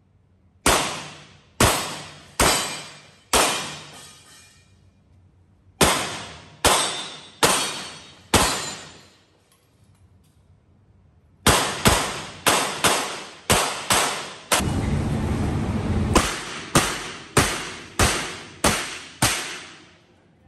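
Revolver shots fired in three quick strings with short pauses between them, each shot sharp and followed by a long echo off the walls of an indoor range. The last string is the fastest, and a second or so of rushing noise runs through its middle.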